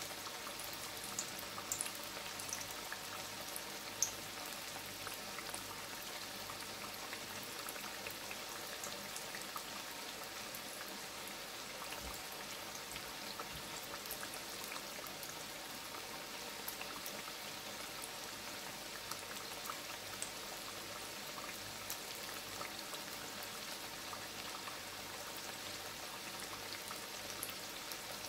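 Hot oil frying slices of breadfruit in a pot: a steady sizzle with scattered small crackles, and a couple of sharper pops in the first few seconds.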